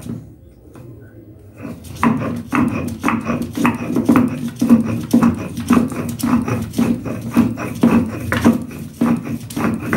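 Stone grinding slab and muller (shil-nora) working tulsi leaves into a fine paste: regular back-and-forth grinding strokes, roughly two and a half a second, starting about two seconds in.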